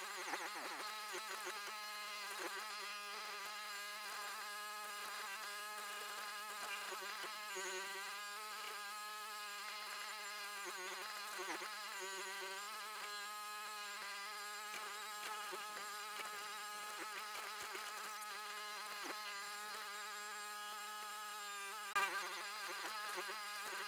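Bobcat 743 skid steer's engine running steadily with a buzzy drone that wavers slightly in pitch, as the machine works a stump bucket against a large stump it cannot pull. A single sharp clunk comes near the end.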